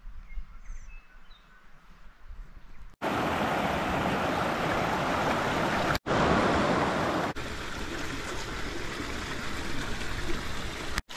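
Rushing mountain stream tumbling over boulders: a loud, even rush of water. It starts abruptly about three seconds in, after a quiet opening with a few faint high chirps, and it steps slightly quieter about seven seconds in.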